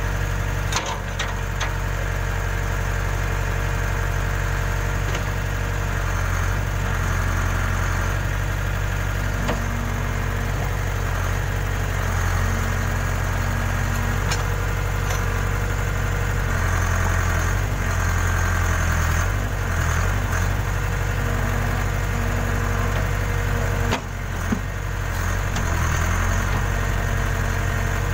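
Case 580K backhoe loader's diesel engine running steadily while digging, its note shifting as the hydraulics take load, with a few sharp knocks, one about a second in and two late on.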